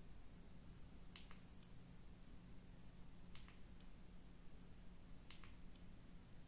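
Faint clicking from a Samsung Galaxy A22 being locked and unlocked with its side power key and fingerprint sensor. Three quick double clicks come about two seconds apart, with the phone's short, high lock and unlock ticks between them.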